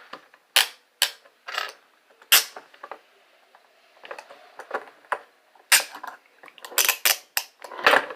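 Steel handcuffs and restraint chain being handled: sharp metal clacks and clinks, scattered through the first couple of seconds, a quieter stretch about three seconds in, then a busier run of clacks near the end.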